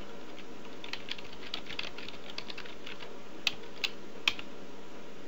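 Typing on a computer keyboard: a quick run of keystrokes for about two seconds, then three louder, separate key presses.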